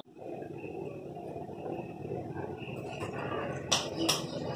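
Steady low background noise, with two sharp clicks near the end.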